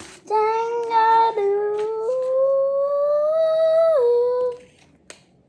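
A girl singing a wordless made-up tune, holding a few long sustained notes that step up in pitch and drop near the end, then falling quiet with a few faint paper handling clicks.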